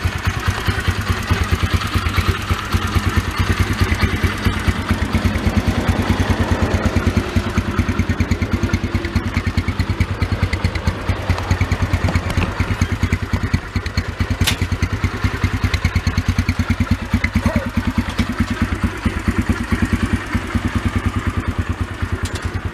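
Yamaha TT-R125 dirt bike's single-cylinder four-stroke engine idling steadily, warming up with fresh oil so it circulates before the level is checked.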